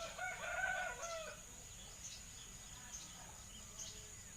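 A bird calls once, a pitched call about a second long at the start, followed by faint chirps.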